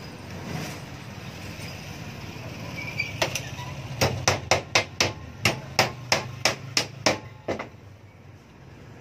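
Hammer blows on wood at a homemade table-saw bench: a quick run of about a dozen sharp strikes, roughly three a second, starting about three seconds in and stopping well before the end, as the board is knocked into position for cutting.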